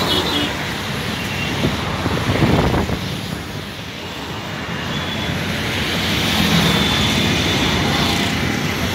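Steady traffic noise from a congested city road: cars, auto-rickshaws, motorbikes and buses running below, swelling and easing a little as vehicles pass.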